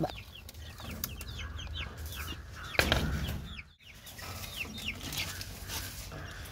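Young chickens peeping over and over, short falling chirps several times a second, as they feed at the feeder. A single thump about three seconds in.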